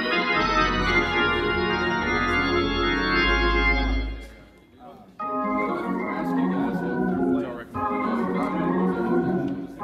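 Hammond-style console organ playing long held chords, the first with a deep bass note beneath it. It pauses about four seconds in, then plays two more held chords.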